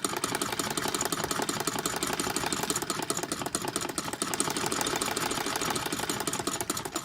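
Ca. 1910 Wertheim hand-cranked sewing machine stitching steadily in forward, a fast even clatter of needle and mechanism with a slight rattling from the bobbin in the shuttle. It stops just at the end.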